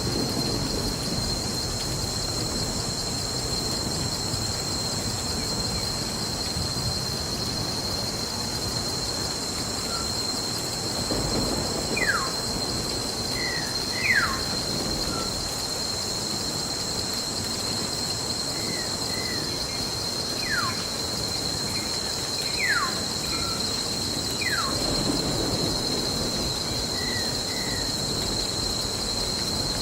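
Nature ambience track: steady rain with low swells of thunder under a constant high whine, while a bird calls about five times with short falling whistles in the middle of the stretch.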